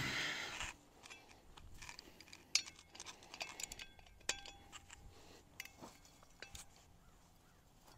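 Faint, scattered metallic clinks and taps of steel anchor hardware being handled at a steel post bracket, with one short ringing note about four seconds in. A power tool's whir dies away in the first moment.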